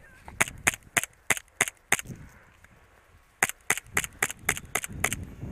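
Gas blowback airsoft pistol fired in quick semi-auto shots: a string of about six sharp cracks, a pause of over a second, then about eight more in faster succession.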